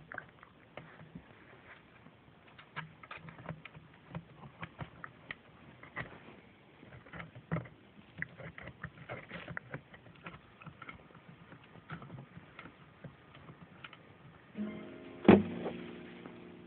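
One-month-old Pungsan puppies gnawing on a chair: irregular small clicks and scrapes of teeth on it. Near the end comes a sharp knock with a ringing tone that fades over about two seconds.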